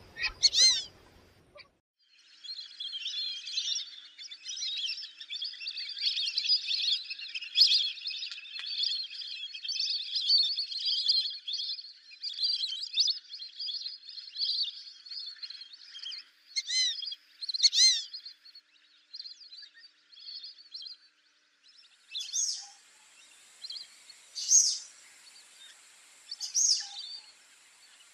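A flock of lesser whistling ducks calls in a dense chorus of high, thin whistles. Near the end the chorus thins to single louder whistles about two seconds apart.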